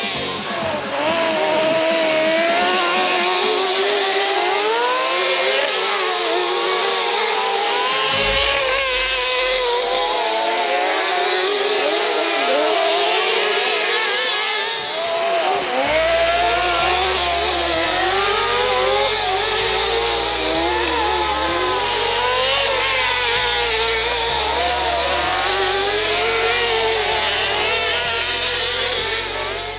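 Several racing cars' engines running hard together, their pitches rising and falling as they rev and shift through the gears.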